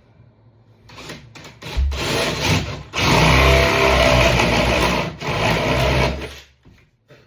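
Electric drill with a one-inch spade bit boring into a wooden door jamb for the latch strike plate. The motor spins up nearly two seconds in, cuts loudly and evenly for about three seconds, then winds down.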